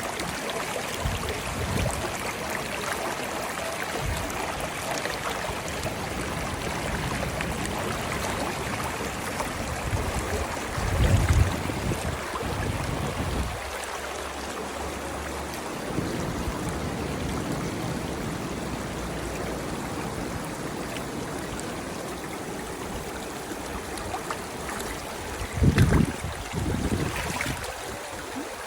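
Running water flowing steadily, like a stream, with a couple of brief low rumbles, about eleven seconds in and near the end.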